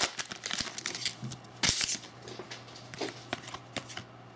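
Trading cards being handled and flipped through: short card-on-card slides and taps, with a louder rustle about one and a half seconds in.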